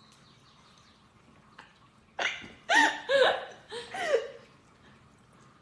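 A cat meowing several times in quick succession, each meow rising and falling in pitch, starting about two seconds in.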